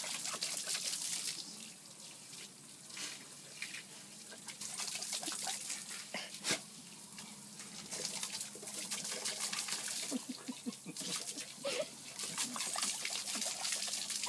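Garden hose stream splashing on concrete while a golden retriever snaps and laps at the water, the splashing coming and going in uneven spells. There is a sharp click about six and a half seconds in.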